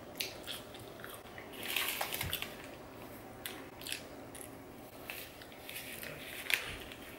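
Mouth sounds of a person eating: soft wet chewing clicks on a chip, a denser crunchy stretch about two seconds in, and a bite into a doner wrap near the end.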